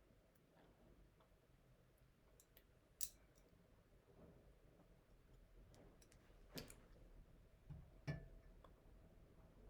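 Quiet room with a few scattered clicks and taps from a diecast model aircraft and its packaging being handled, the sharpest about three seconds in and two more later.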